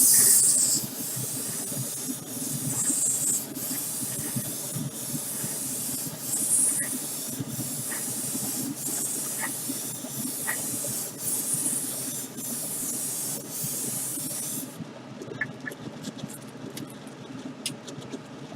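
Clear coat being sprayed onto a model car body: a steady spray hiss broken by short gaps about once a second, stopping about fifteen seconds in. A few light clicks follow.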